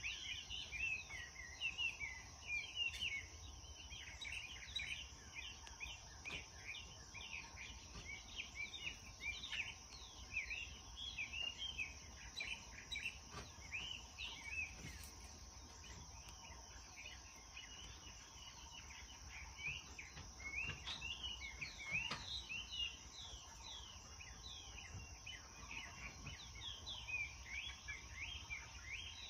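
Young chickens peeping continually, many short high chirps a second, over a steady high-pitched background hiss.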